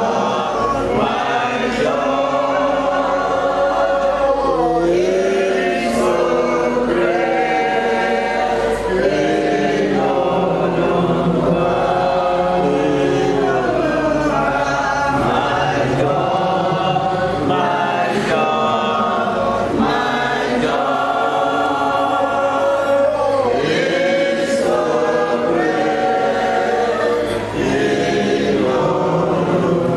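A congregation singing a worship hymn together, many voices in chorus.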